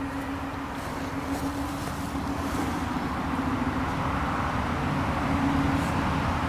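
Engine noise: a steady droning hum with a held low tone, growing gradually louder.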